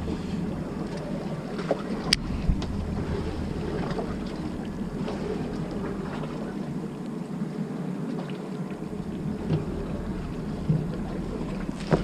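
Steady hum of a fishing boat at sea, with wind on the microphone, and a single sharp click about two seconds in.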